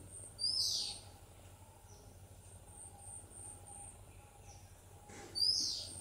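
Oriental magpie-robin calling: two loud whistled notes about five seconds apart, each sliding down in pitch.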